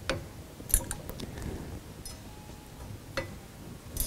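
A handful of light, scattered metal clicks from a ball-tip hex wrench turning and seating the mounting-plate screws of an AR-15 free-float handguard as they are tightened down.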